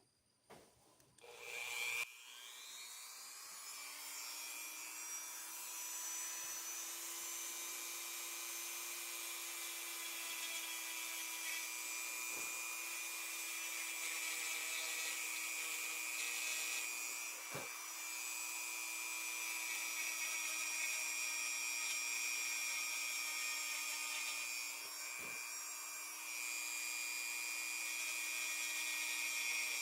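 Dremel rotary tool spinning up about two seconds in, then running at a steady high whine as it roughs up the bone knife handle where the shield sits, with a few brief dips in the sound.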